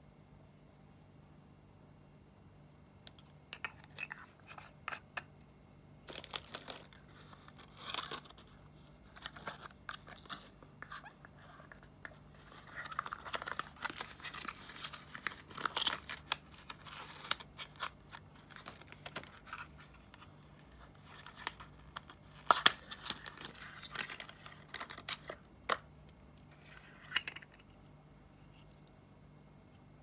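Hands unwrapping and handling cosmetics packaging: crinkling and tearing of wrapping and a small cardboard box, mixed with sharp clicks and taps of a plastic compact case. The sounds come in irregular bursts that start a few seconds in and stop shortly before the end.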